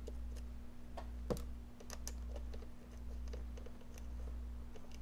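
Faint, scattered small clicks and taps of hands handling wiring and hardware, with one sharper click about a second and a half in, over a steady low hum.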